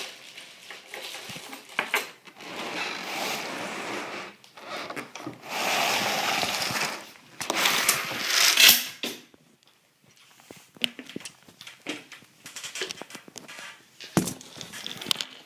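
Handling noises from working on an RC truck by hand: plastic and small metal parts rubbing, scraping and clattering, in uneven bursts with scattered sharp clicks, quieter in the last few seconds.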